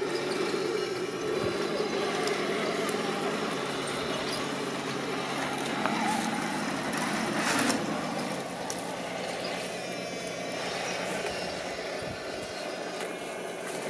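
Heng Long 1/16-scale RC tank of an M41 Walker Bulldog driving over rough stones, its small electric drive motors and gearboxes whining steadily. Its tracks clatter and knock on the rocks, loudest just before eight seconds in.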